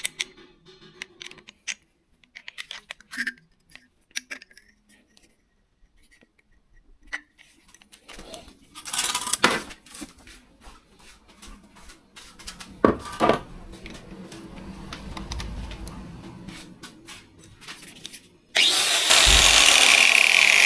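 Small clicks and knocks of handling parts, then, about two seconds before the end, a power tool starts suddenly and runs loud and steady.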